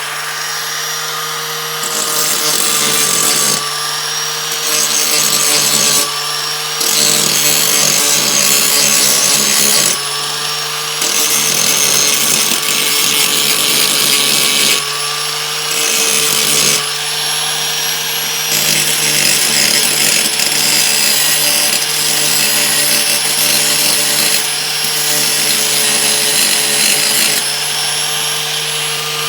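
An electric disc sander runs steadily while a welded steel part is pressed against it again and again, giving stretches of harsh grinding noise a few seconds long. The excess weld is being ground back flat.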